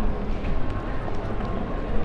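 City street ambience: a continuous low rumble of traffic with passers-by around.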